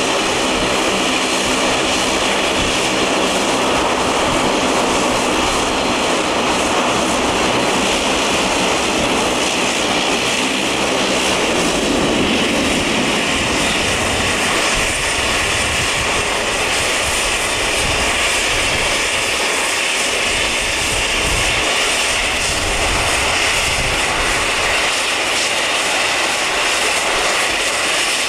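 Bombardier DHC-8-402Q Dash 8's twin Pratt & Whitney PW150A turboprops running while the aircraft taxies, a low propeller drone under a steady high turbine whine. About twelve seconds in, the low drone fades and the whine grows stronger.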